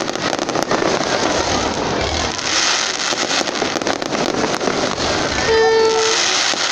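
Fireworks display: aerial shells bursting overhead in a continuous run of bangs and crackling. Just after five seconds in, a short horn-like toot sounds for about half a second over the crackle.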